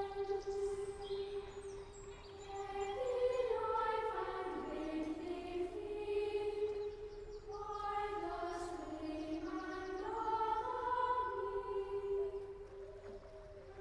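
A choir of high voices singing slow, long-held notes that move step by step in pitch, in close harmony.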